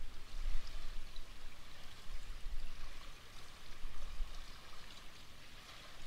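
River water flowing, a steady rushing noise over an uneven low rumble, fading somewhat near the end.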